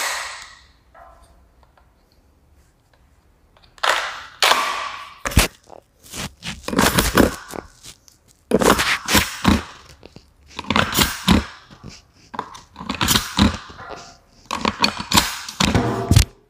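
XM1014 (Benelli M4) gel blaster toy shotgun being handled and worked, giving dense runs of mechanical clicks and clacks. There is a knock at the start, then about six runs of a second or so each, beginning about four seconds in.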